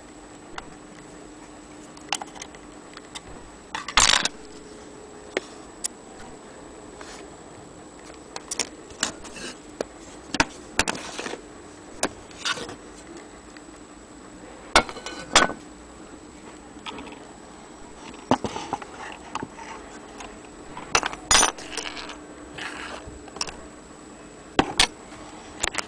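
Brass parts of a French mantle clock being handled: irregular metallic clicks, clinks and knocks, the loudest about four seconds in and again near twenty-one seconds, over a faint steady hum.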